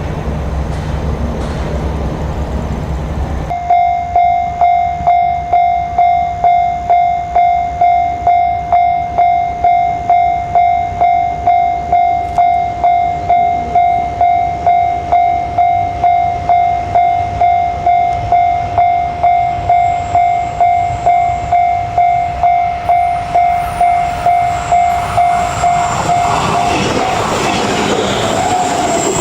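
Japanese railway level-crossing warning bell ringing in an even, repeating clang, a little under two strikes a second. It starts about three and a half seconds in, after a low rumble, and stops shortly before the end, when the running noise of an approaching train grows louder.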